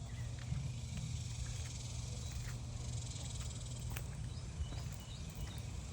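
Outdoor garden ambience: a steady high insect hiss over a low rumble, with a few faint short chirps near the end.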